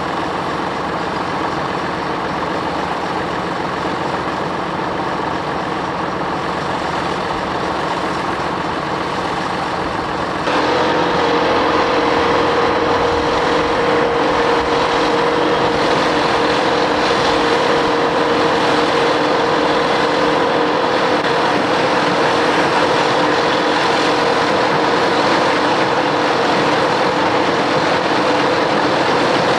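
Crawler bulldozer's diesel engine running hard under heavy load, stepping up in level about ten seconds in, when a steady whine joins it.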